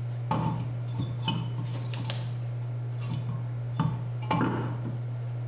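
Steel wheel being fitted onto the hub and wheel studs, giving a series of light knocks and clunks of metal on metal, over a steady low hum.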